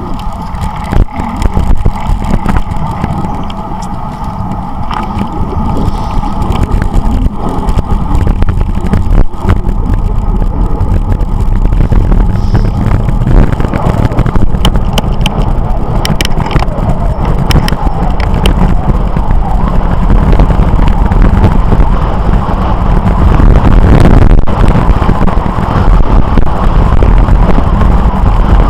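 Wind rushing over the microphone of a bicycle moving at speed, together with road noise. It grows louder through the first two thirds as the speed builds.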